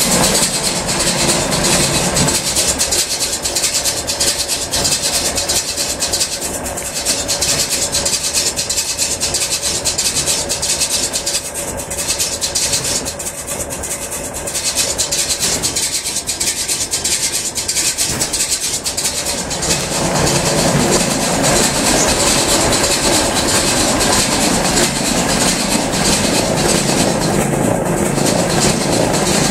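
Homemade fixed-chamber round baler running, its steel chamber rollers turning with a dense, rapid mechanical clatter. The noise grows louder and fuller about two-thirds of the way through.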